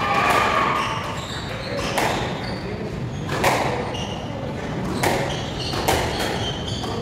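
Squash rally: the ball struck by rackets and smacking off the court walls with a sharp crack about once a second, with shoes squeaking on the wooden court floor between shots.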